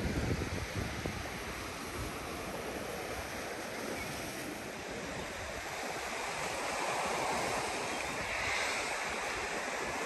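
Black Sea surf washing over a rocky shore: a steady rush that swells about seven seconds in. Wind rumbles on the microphone in the first second.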